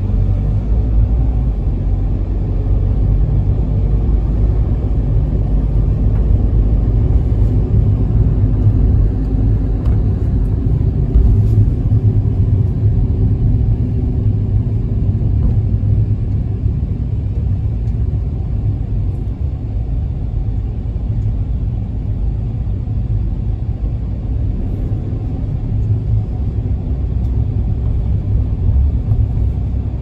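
Toyota HiAce minibus with a 2.8-litre diesel engine, running, heard from inside the passenger cabin as a steady low engine and road rumble.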